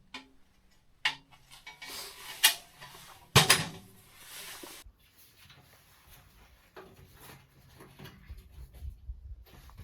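Clatter of items being handled and set down: sharp knocks about a second, two and a half and three and a half seconds in, the last the loudest, with rustling between and softer knocks after.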